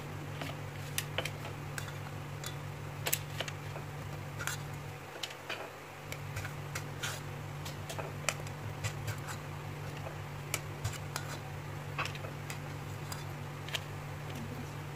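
A metal spoon lightly clicking and tapping against a bowl at irregular moments as food is moved around, over a steady low hum.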